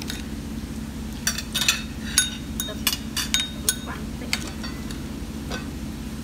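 Metal spoon stirring fish sauce in a small ceramic bowl, clinking against the bowl's sides about ten times in quick, uneven strokes, with one last clink near the end.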